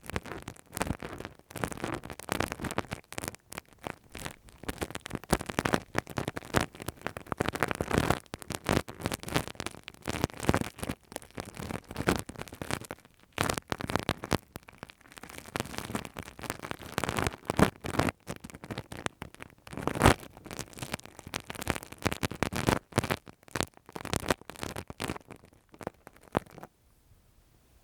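Ear-cleaning ASMR: close-miked scratching and crackling of a tool working in a microphone's ear, a dense run of small scrapes and clicks that stops about a second before the end.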